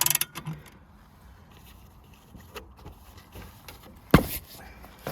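Ratchet handle of a scissor jack clicking in a quick run of sharp clicks as it winds the jack, stopping within half a second. Then about four seconds in comes a single sharp metallic knock.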